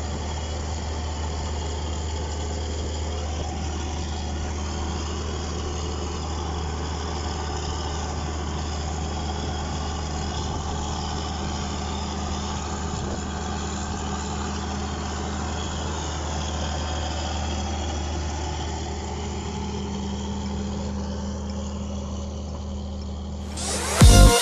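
New Holland tractor's diesel engine running steadily under load as it pulls a trailed disc harrow, a low even drone. Electronic music cuts in loudly just before the end.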